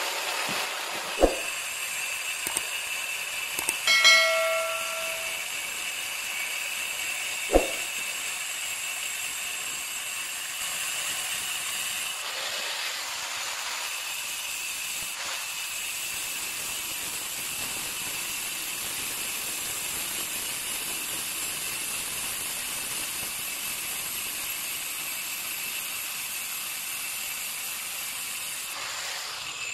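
Handheld angle grinder running steadily and cutting through a stone countertop: a constant high whine over a gritty hiss. Two sharp knocks, about one second and seven and a half seconds in, and a short ringing tone about four seconds in.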